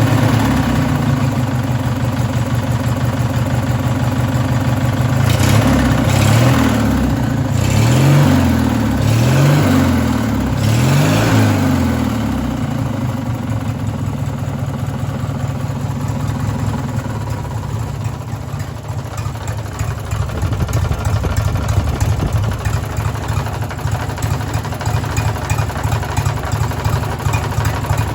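Racing lawn mower engine running, revved up and back down several times in quick succession, then settling to a steadier idle and picking up again toward the end. The owner suspects rod knock in this engine.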